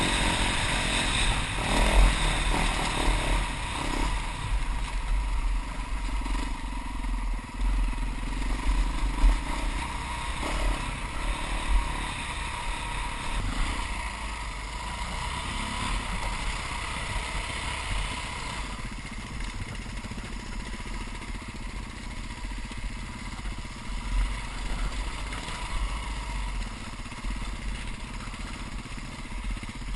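Dirt bike engine running while riding a rough dirt trail, heard from a camera mounted on the bike, with low rumble on the microphone; a little quieter after the first dozen seconds.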